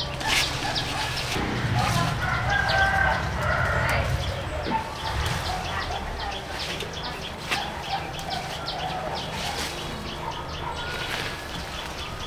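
Chickens clucking and a rooster crowing, with scattered light clicks and knocks.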